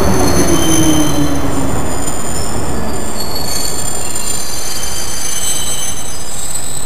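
London Underground C stock train braking to a stop on a curved platform: the traction motor whine falls in pitch over the first couple of seconds, under a steady noise of running gear. High-pitched wheel and brake squeals carry on throughout and die away at the very end.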